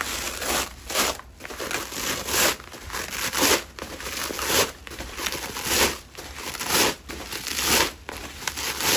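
Plastic bubble wrap crinkling and rustling as hands pull at and unroll it, in irregular bursts about once a second.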